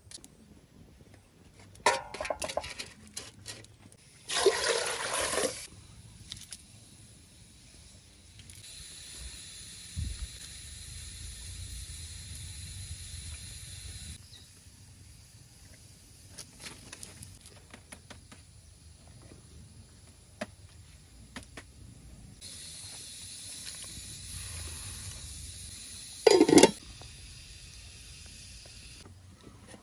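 Cookware clatters, then water is poured into a metal pot for about a second. A steady hiss follows as the pot of water heats over a wood fire, coming twice for several seconds each time, with a brief loud knock of cookware near the end.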